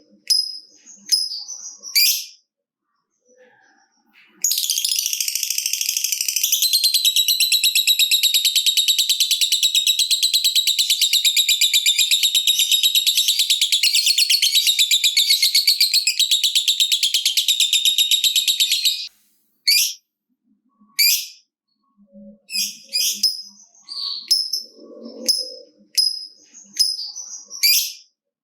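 Lovebird giving short sharp chirps, then a long, fast chattering trill (the 'ngekek panjang') that runs for about fourteen seconds before breaking back into short chirps.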